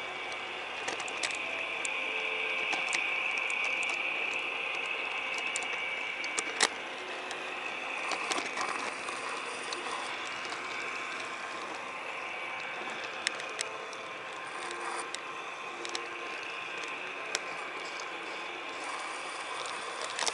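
HO-scale model train running along the track, its motor and gears whirring steadily, with irregular sharp clicks as the wheels cross rail joints and turnouts.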